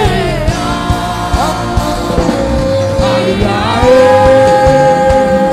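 Gospel worship music: a voice sings long, drawn-out notes over drums, with one note held steady through the second half.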